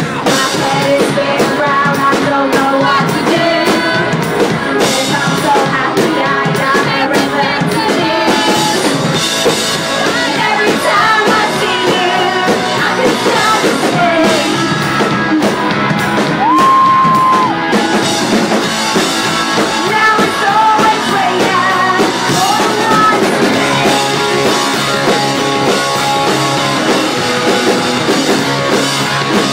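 Live rock band playing loud: electric guitars, drum kit and sung vocals. The recording is thin, with almost no bass.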